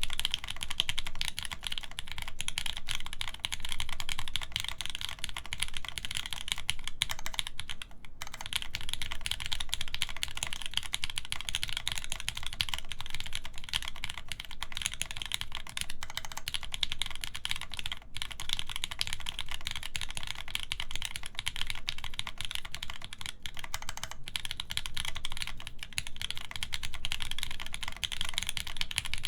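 Continuous fast typing on a mechanical keyboard with lubed Gateron Yellow linear switches in milky housings, an FR4 plate and GMK keycaps: dense key clacks with the odd brief pause.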